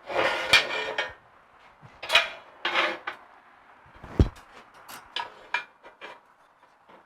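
Steel bumper parts being handled and set in place: a scrape in the first second, more short scrapes and clinks, and one sharp metal knock about four seconds in.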